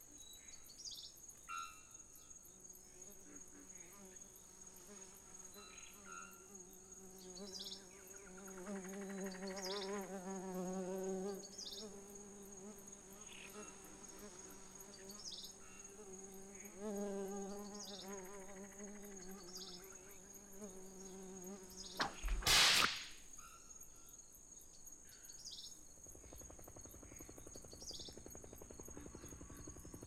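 Designed jungle soundscape: a steady high-pitched insect drone with short chirps repeating about every second and a half. Over it a buzzing fly-like insect hovers close, swelling louder twice. About three quarters through comes a brief loud burst, and near the end a low rumble begins to build.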